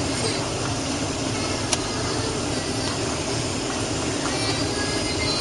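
Steady cabin roar of a Boeing 737-800 in flight on approach, engine and airflow noise heard from a window seat over the wing. A single sharp click about two seconds in.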